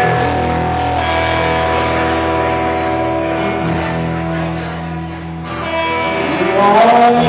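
Live rock band playing an instrumental passage led by electric guitar over bass and drums.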